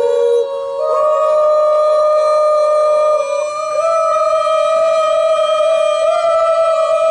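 Music of long held notes, each sustained for about three seconds, stepping up in pitch twice with a short slide into each new note.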